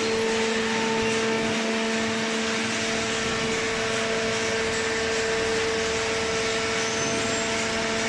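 Hydraulic power unit of a horizontal cardboard baler running: a steady motor and pump hum with a hiss above it.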